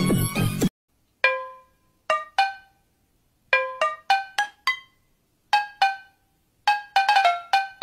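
Dance music cuts off abruptly under a second in. It gives way to short plucked notes of different pitches, like pizzicato strings, sounding singly or in pairs with pauses between, each dying away quickly. The notes quicken into a short run near the end.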